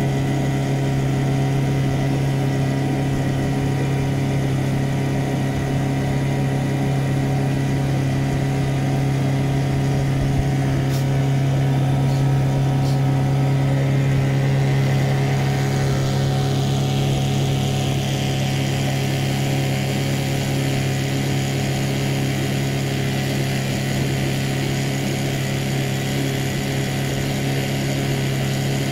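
Outboard motor running at a steady, constant speed while pushing a small wooden boat, a loud even hum that neither rises nor falls.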